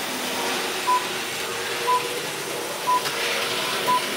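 BBC Radio 4 Greenwich Time Signal pips from a radio: four short, high beeps one second apart, counting down to the hour. Under them runs the steady whirr of a Hornby model train going round its track.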